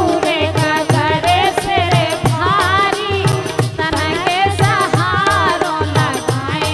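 Bundeli folk song: a woman sings a bending, ornamented melody with harmonium, over a steady beat on dholak and tabla of about two strokes a second.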